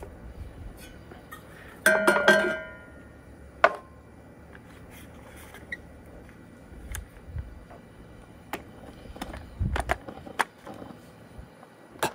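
Clinks and knocks of metal coffee-making gear being handled, a hand coffee grinder among it: a loud ringing clink about two seconds in, a sharp tap a little later, then scattered light clicks and taps with a cluster near the end.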